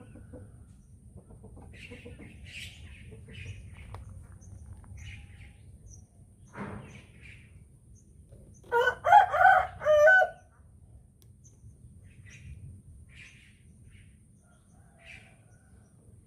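Rooster crowing once about halfway in, a single cock-a-doodle-doo lasting about a second and a half. Small birds chirp faintly before and after it.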